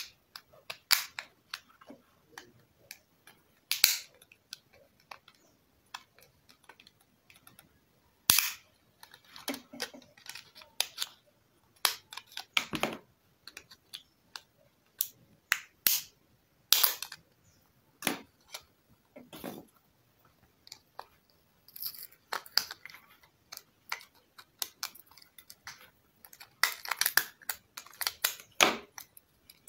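Small screwdriver clicking, tapping and scraping against a mobile phone's plastic frame and internal parts as the phone is taken apart: scattered sharp clicks with short gaps between.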